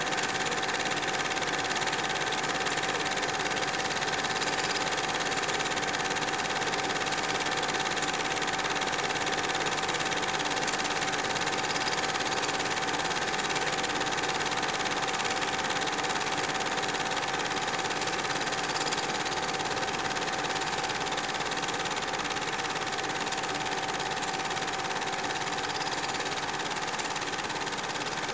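Home-movie film projector running: a steady mechanical whir and clatter with a constant hum tone.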